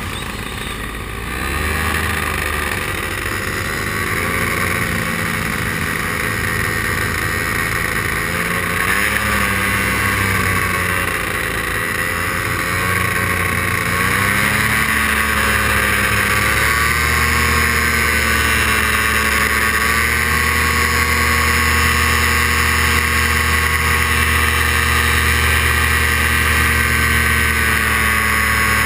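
Paramotor engine and propeller running in flight. The engine note rises and gets louder about a second and a half in, shifts up and down a few times with throttle changes, then holds a steady pitch for the second half.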